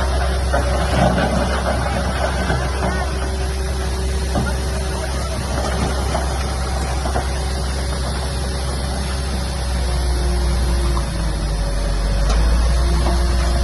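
Heavy diesel earth-moving machinery running, with rattling and crackling in the first few seconds, and the engine's low rumble growing louder from about ten seconds in as it takes more load.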